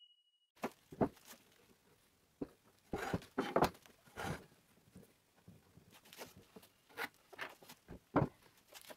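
Wooden boards being handled on a plywood workbench: scattered light knocks and scrapes of wood on wood, starting about half a second in.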